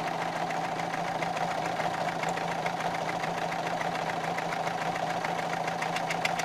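Renault 1.5 dCi diesel with Delphi Euro 3 injectors idling with a fast, regular metallic knock. The owner puts the knock down to an injector sitting loosely in its seat: the clamp cannot press it down any further, and the copper seal leaves it able to wobble.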